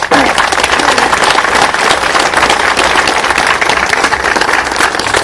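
Audience applauding: many hands clapping together in a steady crackle that eases off a little near the end.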